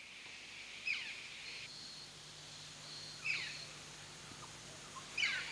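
Rainforest ambience: a bird gives a short falling call three times, about two seconds apart, over a steady high hiss.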